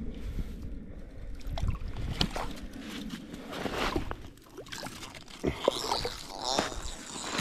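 A trout being landed through a hole in the ice and handled on snow and slush: scattered short knocks and crunches.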